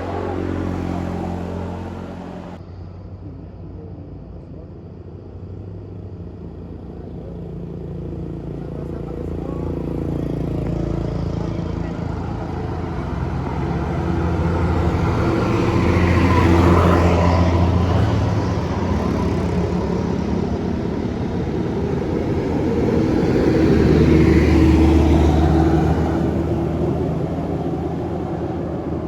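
Buses labouring up a hill past the listener, their engines working hard under load; the sound swells to a peak and fades twice as they go by.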